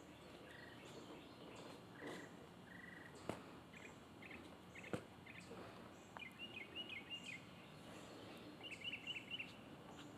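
Faint songbird chirping outdoors: short, high calls given in quick runs of several notes, the clearest in the second half. Two soft clicks come a little before and a little after the middle.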